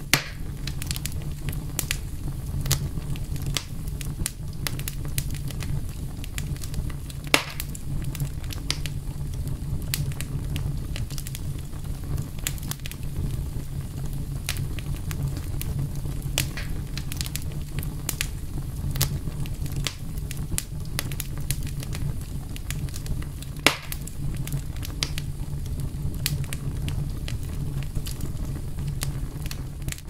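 Wood campfire burning, the logs crackling with frequent sharp pops over a steady low rumble. Two louder snaps stand out, about seven seconds in and again about three-quarters of the way through.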